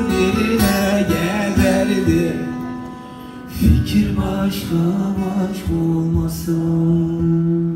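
A man singing to a strummed acoustic guitar. Around three seconds in the voice drops away after a short dip, and the guitar strums on alone with ringing chords.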